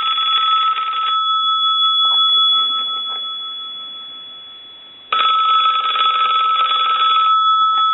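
Mickey Mouse novelty telephone's bell ringing in two bursts of about two seconds, one ending about a second in and the next starting about five seconds in, with the bell ringing on and fading between them. The bell has just been loosened and adjusted.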